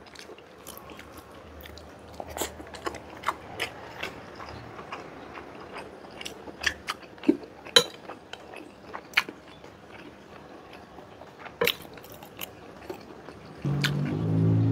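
Close-miked eating sounds: a person chewing soft milkfish and rice, with scattered sharp wet mouth clicks and smacks. About a second before the end, music comes in.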